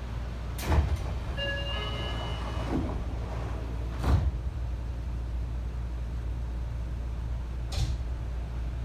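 Seibu 20000 series commuter train's sliding doors at a station stop: a knock about a second in, a brief chime of short electronic tones, then the doors thudding shut about four seconds in and another knock near the end, over the car's steady low hum.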